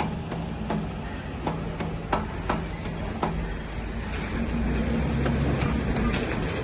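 Small diesel generator engine, worked with a starting handle, running with a steady low hum, with several sharp clicks in the first half. About four seconds in the engine gets louder and deeper.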